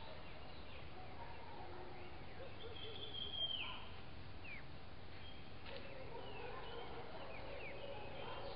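Wild birds calling in the forest over a steady hiss. About three seconds in comes a held whistle that slurs downward at its end, followed by several short falling notes.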